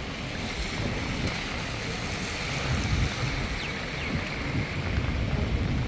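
Heavy rain falling as a steady hiss, with wind buffeting the phone's microphone in low rumbles that grow louder around three seconds in and again near the end.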